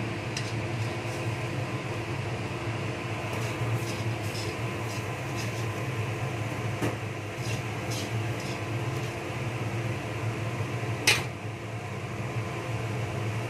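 A steady mechanical hum, like an electric fan or appliance motor running, with a few light ticks and one sharper click about 11 seconds in.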